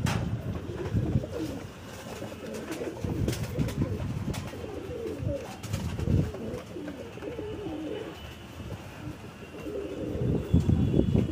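Domestic pigeon cooing over and over: the courtship coo of a male displaying to a female, tail fanned and circling her.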